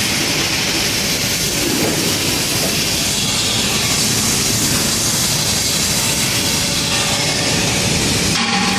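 Flux-cored arc welding on stainless steel: the arc's steady, loud crackling hiss, briefly interrupted near the end.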